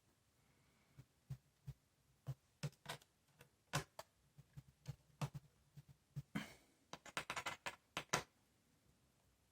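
Light clicks and taps of a laptop's keyboard cover being handled and fitted back into place, with a brief scrape about six and a half seconds in and then a quick run of clicks.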